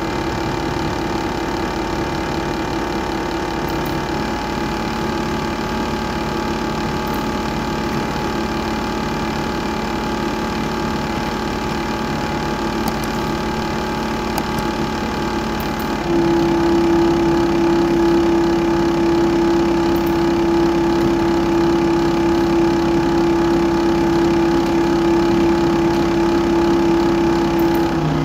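Small DC motor spinning a disc, its speed set by a PLC analog output, humming steadily. The hum steps to a new pitch about 4 seconds in and again about 16 seconds in, where it gets louder, as the output value is changed.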